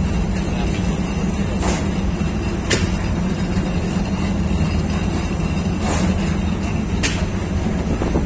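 Bread bakery's conveyor oven running: a steady mechanical rumble and low hum from the moving belt and oven machinery, with a few sharp clicks at irregular intervals.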